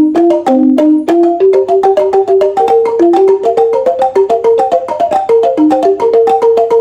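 Tuned bamboo instrument playing a melody of clear pitched notes. At first the notes are struck singly, then from about a second in each note is rattled in a fast tremolo.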